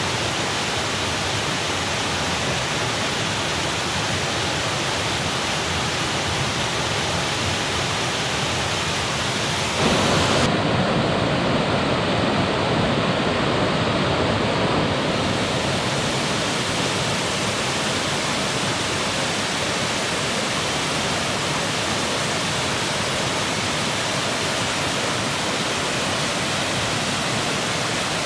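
Steady rushing of a small waterfall, about 15 feet high, pouring over rock. It grows somewhat louder for a few seconds about a third of the way in, then settles back.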